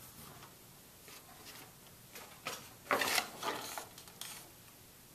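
Paper handling: a page of the picture-test easel being turned, a short run of rustles and clicks that is loudest about three seconds in.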